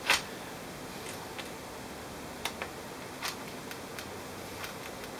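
Light clicks and taps of an HP G60 laptop's motherboard and plastic case being handled as the board is fitted into the base, a sharp click right at the start and a dozen smaller ones spaced irregularly over a steady low hiss.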